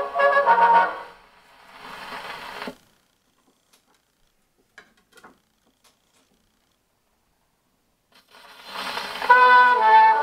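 HMV 102 portable wind-up gramophone playing a 78 rpm record of brass music. The music breaks off about a second in and comes back faintly for a moment. Then there are a few seconds of near silence with a few light clicks as the soundbox is handled, before the record plays loudly again near the end.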